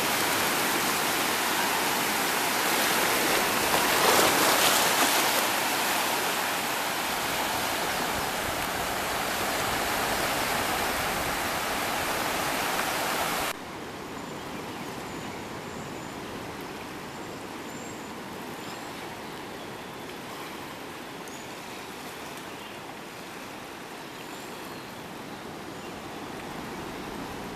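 Seawater washing and churning around shoreline rocks, with a louder surge about four seconds in. About halfway through it cuts off suddenly to the quieter, steady wash of calm sea on a sandy beach.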